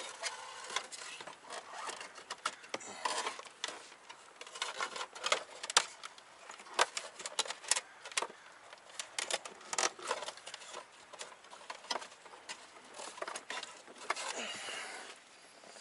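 Hands handling gauge wiring and plastic trim around a car's steering column: irregular clicks, taps and rustles.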